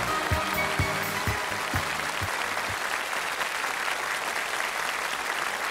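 Audience applauding, with the band's last beats underneath: a low drum thump about twice a second that stops about halfway through, leaving applause alone.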